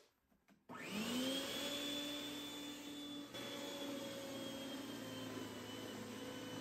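Snow Joe SJ619E 14.5-amp electric snow thrower starting up about a second in, its motor whine rising quickly to speed and then running steadily as it clears light snow.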